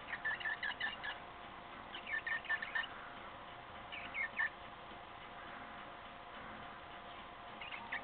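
Cockatiel peeping: quick runs of short, high chirps, three runs in the first half and a brief one at the end.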